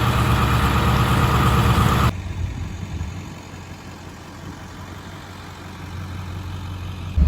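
Ford F350 pickup's engine running as the truck crawls along a muddy trail, with a wide rushing noise over it for about the first two seconds. The sound then drops suddenly to a much quieter, steady low engine hum.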